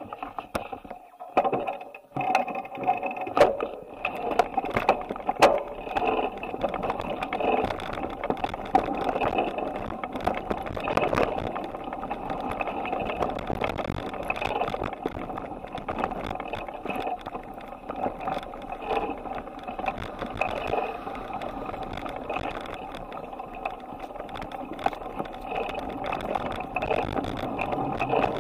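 Bicycle riding, heard through a handlebar-mounted camera: a steady rattle of the mount and bike over the road surface with many sharp clicks and knocks, starting abruptly out of quiet.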